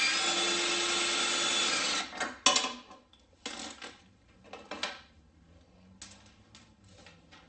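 A handheld power driver runs steadily for about two seconds, backing out the bolt that holds the old fairlead. Several sharp knocks and clicks of tools and metal parts being handled follow.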